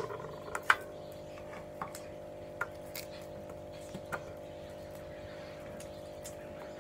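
Onion slices dropping into a large empty aluminium tray, a handful of light taps scattered over the first few seconds, over a steady low hum.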